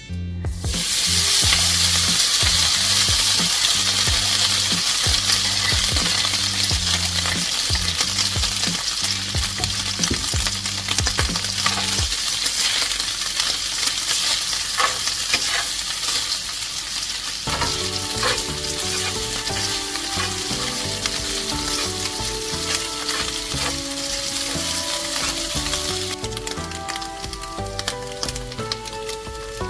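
Food sizzling steadily as it fries in a hot pan, with scattered clicks of a utensil stirring it. Background music with a melody comes in about halfway through.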